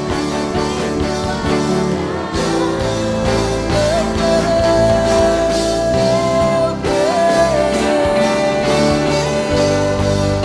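Live worship band music with a steady beat, with long held melody notes that slide up into pitch twice.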